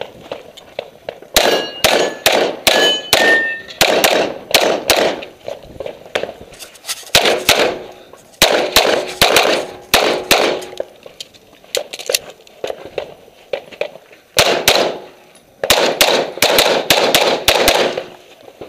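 Handgun shots fired in several rapid strings with short pauses between, during a timed practical shooting stage. In the first strings some hits set steel targets ringing with a bright clang.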